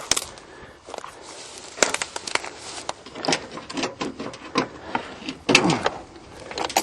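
Irregular clicks and clacks of hands handling parts and tools while working on an old van, with a short squeak that drops in pitch about five and a half seconds in.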